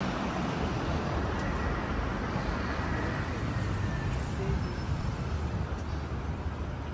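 Steady ambient noise of a busy railway station hall: a continuous low rumble with an indistinct murmur of voices.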